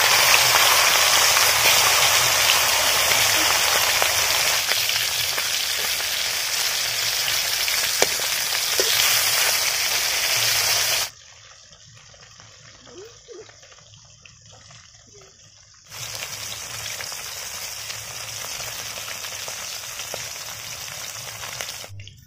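Fish heads frying in hot oil in a karahi: a loud, steady sizzle, strongest as they go into the oil. It breaks off abruptly about halfway through for several quieter seconds, then the sizzling resumes, a little softer.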